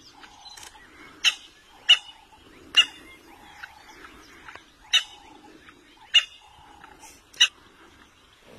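An animal repeatedly gives short, sharp, high-pitched calls, about seven at irregular intervals of roughly a second, over a faint low murmur.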